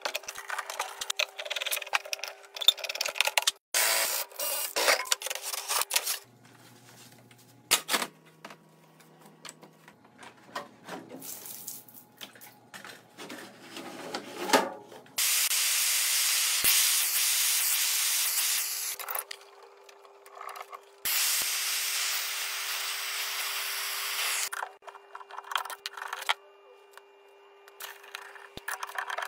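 Hand-tool work on water heater plumbing fittings: clicks, knocks and clatter of a wrench and metal fittings. Further in come two long stretches of loud, steady hiss, each lasting several seconds.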